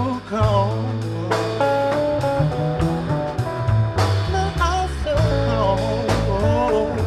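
Neo-soul band playing live: a man singing with sliding, wavering lines over a hollow-body electric guitar and drums, with cymbal hits about every two seconds.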